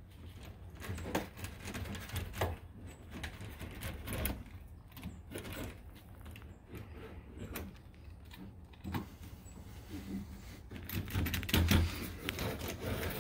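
Spline roller pressing screen spline into the channel of an aluminium screen-door frame: irregular clicks and knocks from the roller and the frame as pressure is put on.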